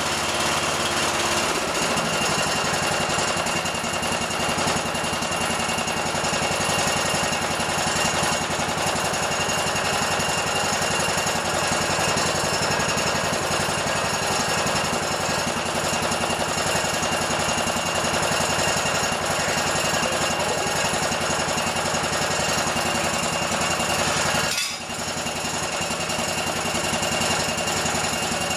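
Lawn tractor's small gasoline engine running steadily with a fast, even firing patter. Its note shifts about a second and a half in, and it dips briefly near the end.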